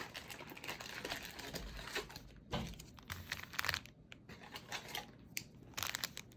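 Plastic wrapping crinkling and tearing as a sealed trading-card hobby box is unwrapped and opened, in irregular crackles and rustles.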